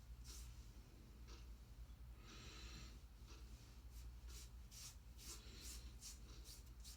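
Faint rubbing and swishing of fingertips spreading olive oil over stubbled skin as a pre-shave: a series of short strokes, coming thicker and faster in the second half, over a low steady hum.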